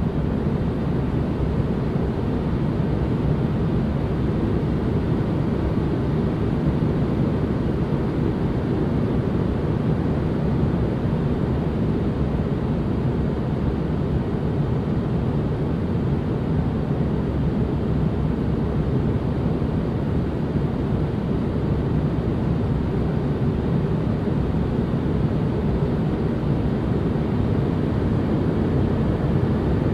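Steady ambient noise for relaxation, a deep rushing sound weighted toward the low end, unchanging throughout.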